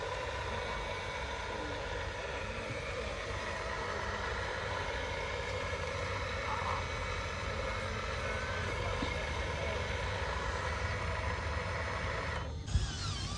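Small electric motors and gearboxes of RC construction models running with a steady whine of several held tones. The sound changes abruptly about a second before the end.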